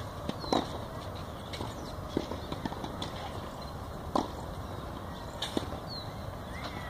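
Outdoor background on a clay tennis court between points: a steady low rumble with a few scattered sharp knocks, the loudest about half a second in and again about four seconds in, and several short high chirps.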